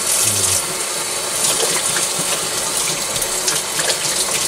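Kitchen tap running steadily into a sink, a continuous splashing hiss of water.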